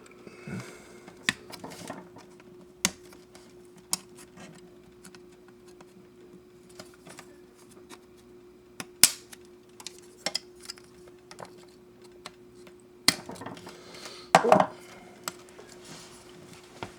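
Sharp clicks and light clatter of plastic model kit parts being handled, snapped off and fitted together, scattered through with a denser run of louder clicks near the end.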